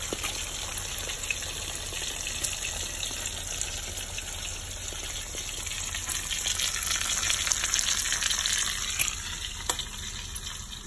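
Egg omelet with jalapeño and mushroom sizzling in a frying pan, a steady crackling sizzle that fades near the end.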